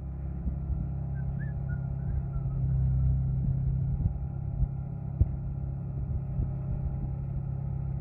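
Crawler bulldozer's diesel engine running steadily at a low rumble, with a few faint knocks from the machine as it moves.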